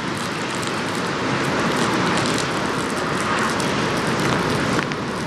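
Steady outdoor rush of rain and wind, with a rumble of traffic underneath.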